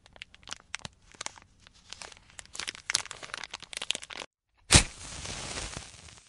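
Dry crinkling and crackling as a small wrapper is handled for about four seconds. Then, after a brief pause, a sharp strike and a hiss that fades slowly as a flame is lit for a cigarette.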